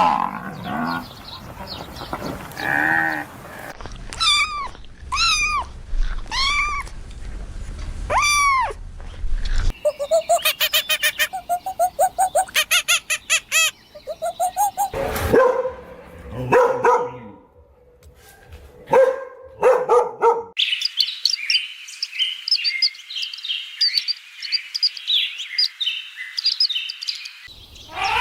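A run of different animal calls, one clip after another. First come repeated calls about once a second, then rapid repeated notes, then lower calls, and in the last third high chirping like birds.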